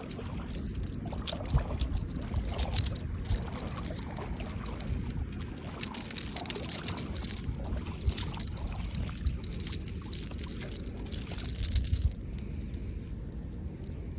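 Water splashing and trickling in irregular bursts over a steady low rumble.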